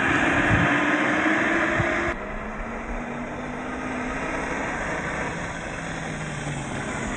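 1/10-scale MST CFX RC crawler driving on gravel: its 27-turn brushed electric motor and gears whine steadily under the sound of the tyres on the stones. The level drops suddenly about two seconds in and then carries on quieter.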